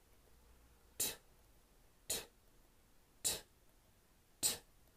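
A man's voice making the unvoiced short 't' sound on its own four times, about a second apart: crisp breathy puffs with no vowel after them.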